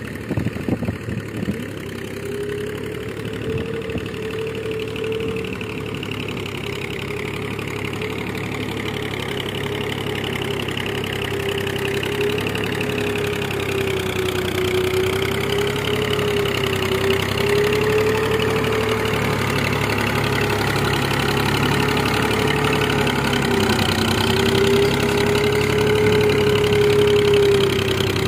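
Massey Ferguson 135 tractor engine running steadily under load as it pulls a cultivator through wet mud, growing louder as the tractor comes closer. A few sharp knocks sound in the first couple of seconds.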